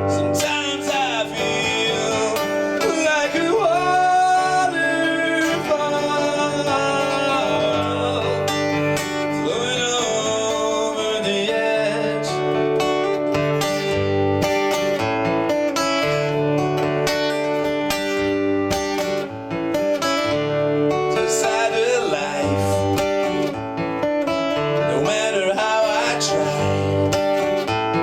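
Music: an acoustic-guitar-led song with a bass line underneath and a melody gliding and bending in pitch above it.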